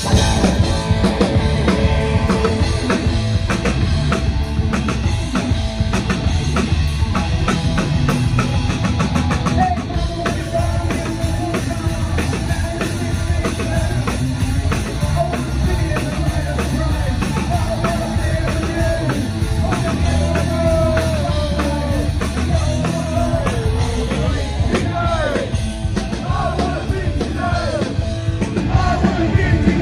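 Punk rock band playing live: drum kit and electric guitars, with a man singing.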